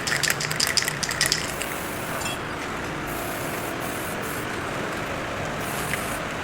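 A quick run of sharp metallic clicks and scrapes for about the first second and a half, then a steady mechanical running noise with a faint low hum, typical of a machine tool running in a metal workshop.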